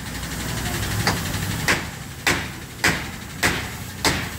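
Hammer driving nails into wooden roof framing: six sharp, evenly spaced blows, a little under two a second, starting about a second in.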